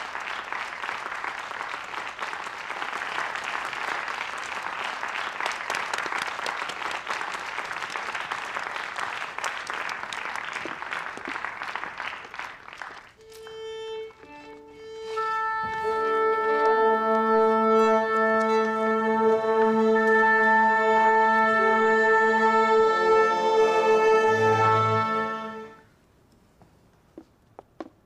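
Concert-hall audience applauding, dying away about thirteen seconds in. A single held note sounds, then the orchestra's strings join with long steady notes on that pitch and its fifth as the orchestra tunes, cutting off together about two seconds before the end.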